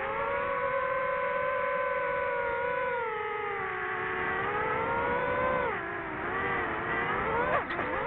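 DJI FPV drone's motors and propellers whining in flight, the pitch sagging and rising with the throttle; it falls sharply just before six seconds in, then dips hard and climbs straight back near the end, heard from on board the drone.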